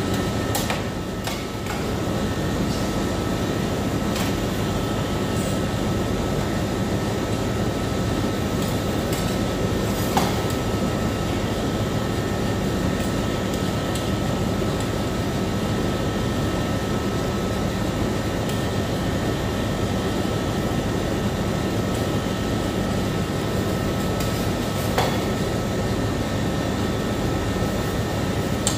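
Steady hum of refrigeration fans and compressor, with a few short sharp taps of steel spatulas on the stainless-steel cold plate of a rolled-ice-cream machine.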